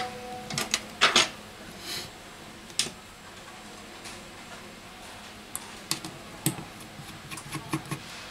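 Scattered small clicks and taps of a smartphone's metal frame and parts being handled during reassembly, with a precision screwdriver picked up and put to a screw. The loudest knocks come about a second in, and a quicker run of light ticks comes near the end.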